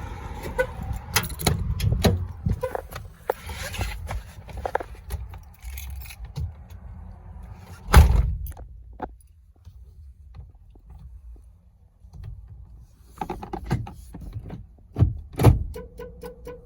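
Keys jangling and handling clicks around a 2001 Ford Expedition, with a single heavy door thump about eight seconds in. A quick run of clicks and knocks comes near the end.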